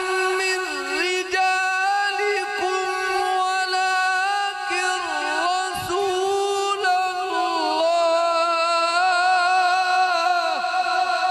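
A man reciting the Quran in the drawn-out melodic style, holding long ornamented notes, amplified through a microphone.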